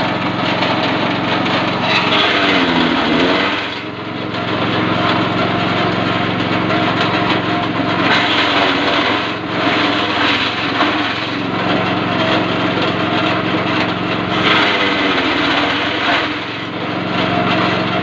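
Honda GX160 single-cylinder four-stroke petrol engine driving a grass chopper, running steadily with a rattling cutting noise. Three times the engine note sags and recovers as the load comes on and the chopping noise rises, as when grass is fed through the blades.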